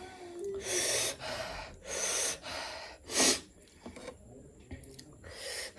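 A woman's hard, hissing breaths through the mouth, about four of them, the sharpest about three seconds in: gasping against the burn of extremely spicy noodles.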